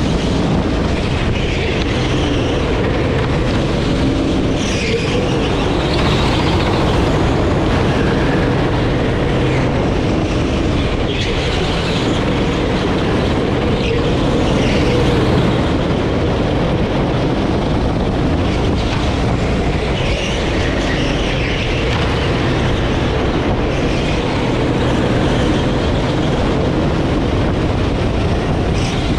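Sodi rental kart running at speed, its engine note wavering as it goes through corners, with road and wind noise on the onboard camera.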